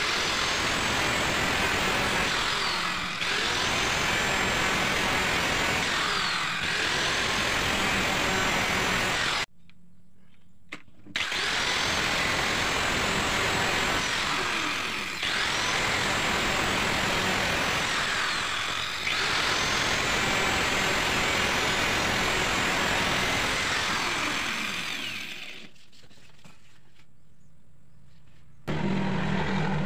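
Handheld power tool working wood, running in long passes of a few seconds each, its motor pitch sliding as it takes and leaves the cut. It stops briefly about a third of the way in and again near the end.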